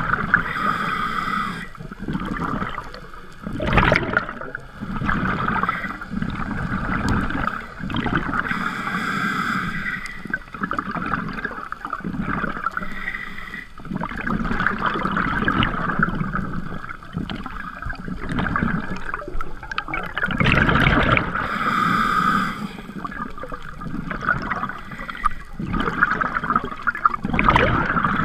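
Scuba diver's breathing through a regulator, picked up by a camera in an underwater housing: gurgling rushes of exhaled bubbles every few seconds over a steady hiss.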